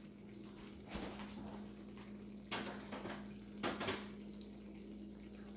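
Tomato sauce simmering in a nonstick frying pan, with a few short sputters of bubbles popping about one, two and a half, and almost four seconds in, over a steady low hum.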